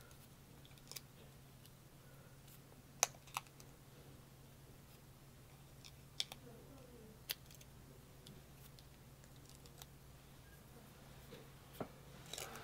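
A handful of faint, sharp taps and clicks at irregular intervals from small paper embellishments being handled and pressed onto a scrapbook page, over a low steady hum.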